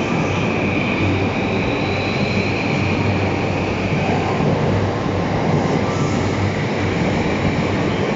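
E235 series electric commuter train pulling out of the station, its steady running noise with a faint high whine along the platform.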